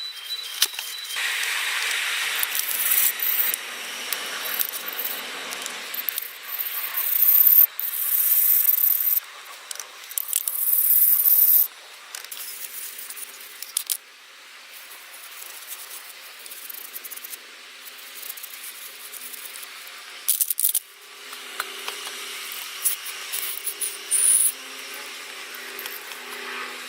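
Hand work on the disassembled AAC idle air valve: small metal parts and tools clinking, scraping and rubbing, with several short bursts of hiss.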